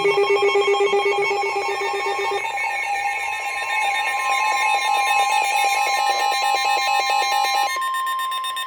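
Emergency alert tones before a severe thunderstorm warning. A fast warbling electronic alarm shifts to a different pitch pattern about two seconds in and stops near the end. Under it runs a steady tone of about 1 kHz, the weather radio warning alarm tone, which carries on alone at the close.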